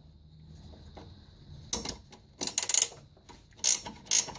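Metal hand tools clinking and rattling against suspension hardware in four short clatters, as wrenches are fitted onto the control-arm bolts.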